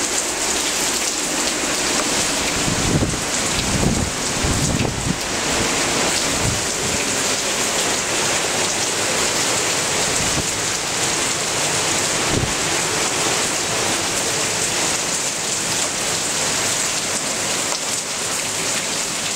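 Heavy hurricane rain pouring steadily, with a few low rumbles a few seconds in and again about twelve seconds in.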